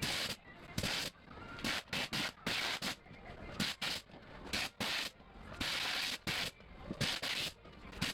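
Repeated short hissing blasts of compressed air, about one a second, with small knocks in between: typical of an air-jet leek peeler stripping the outer skins off white leeks.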